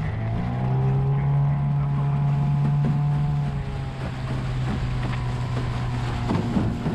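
A small boat's motor running steadily underway, its hum rising slightly in pitch near the start and easing after about three and a half seconds.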